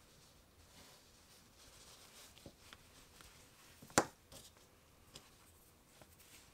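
Faint rustling of yarn and a crocheted piece being handled as black yarn is stitched through it, with small scattered ticks and one sharp click about four seconds in.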